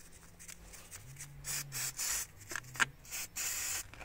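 A stiff bristle paintbrush scrubbing brake cleaner into grime on a motorcycle engine's cylinder head, in several short scratchy, hissing strokes. There is a sharp click about two-thirds of the way through.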